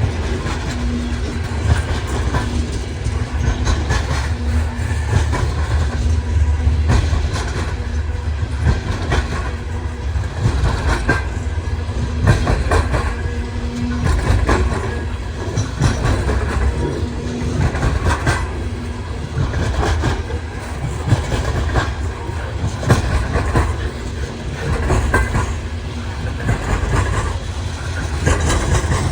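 Loaded coal train's freight cars rolling past, a steady low rumble with steel wheels clicking over rail joints.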